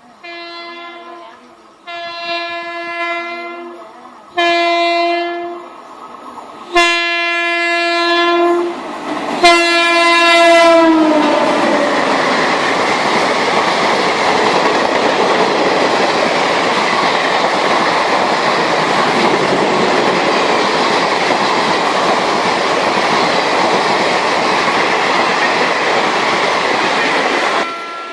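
Train horn sounding five separate blasts, the last one sliding down in pitch as it merges into the train's noise. Then a loud, steady rush of a train running on the rails, which cuts off suddenly near the end.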